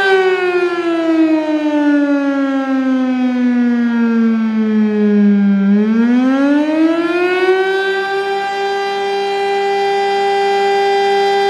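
Federal Signal STL-10 three-phase single-tone chopper siren sounding the attack signal, loud: its pitch holds high, sinks slowly for about six seconds as the motor winds down, then climbs quickly back to full pitch and holds there.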